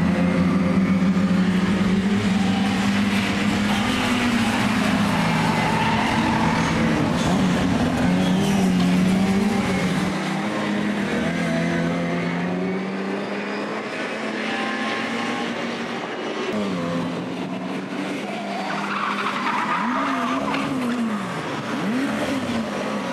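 Several classic Mini racing cars' four-cylinder engines running hard through a corner, the engine notes rising and falling as they lift off and accelerate. Near the end tyres squeal and the revs swing sharply up and down as one car slides sideways.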